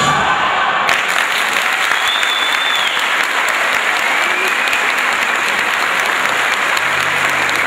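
Audience applauding, a steady, dense clapping that starts as the last note of the folk-dance music dies away.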